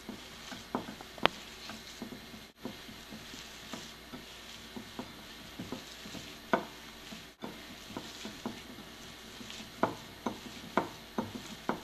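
Mashed potato and chickpea dough being mixed and squeezed by hand in a glass bowl: soft squishing with scattered sharp clicks, several of them close together near the end.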